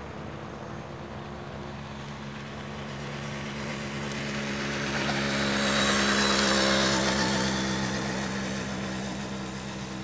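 Cessna 150's four-cylinder piston engine and propeller climbing out at takeoff power, a steady drone that grows louder to a peak about six seconds in as the plane passes close, then fades as it flies away.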